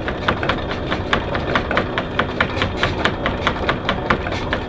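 Electric anchor windlass hauling in anchor chain: a steady run of clicks as the links pass over the gypsy, about six a second, over a low steady motor hum.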